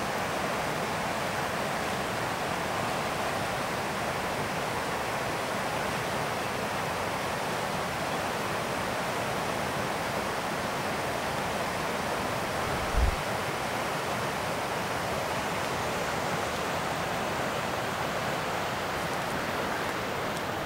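Steady rush of river rapids, an even, unbroken hiss of flowing water, with one brief low thump about thirteen seconds in.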